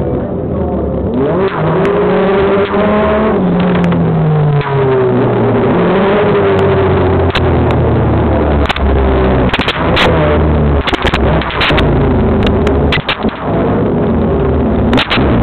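Super FJ formula race car engines idling and being revved on the starting grid, the pitch rising and falling with each blip of the throttle, heard from the cockpit; sharp clicks come through the second half.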